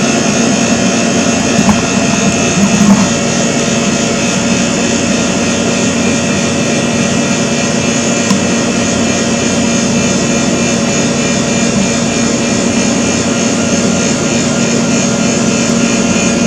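Steady mechanical drone and hiss with several fixed humming tones, unchanging throughout, like an air-conditioning unit running. A couple of faint brief sounds come in the first three seconds.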